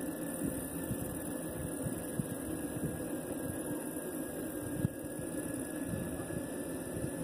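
Electric unicycle's hub motor humming steadily while riding on smooth asphalt, with wind buffeting the microphone as an irregular low rumble.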